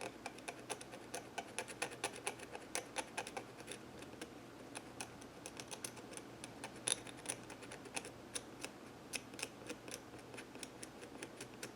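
X-Acto knife blade picking and scraping at small parts, making an irregular run of small sharp clicks, several a second.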